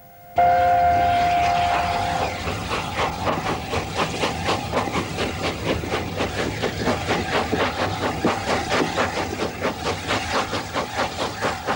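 Steam locomotive passing at speed. It comes in suddenly and loud, with a two-note whistle held for about two seconds, then fast, even exhaust beats over the rumble of the train.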